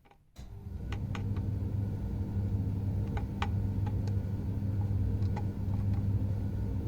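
Steady low hum with scattered light clicks and taps as vernier calipers are worked into a small hole in a metal mirror joint.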